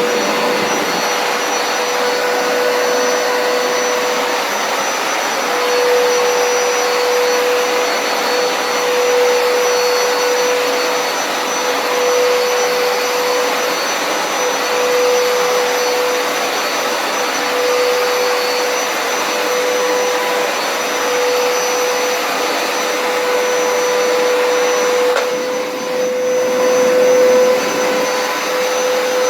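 Hoover Carpet Basics Power Scrub Deluxe carpet cleaner running: its motor spins up with a rising whine at the start, then holds a steady whine over a rushing suction noise as it washes and sucks up a carpet stain.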